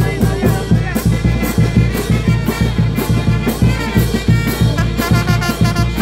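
Brass band playing music with a steady beat, trumpets and trombones carrying the tune.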